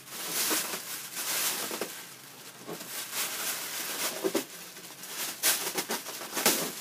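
Rustling and scraping of a cardboard box and its packaging being handled, with a few sharper clicks near the end.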